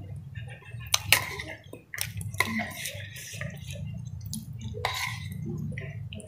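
Metal cutlery clinking and scraping against a ceramic bowl as noodles are lifted out. The sharpest clinks come about a second in, with more around two and five seconds in, over a steady low hum.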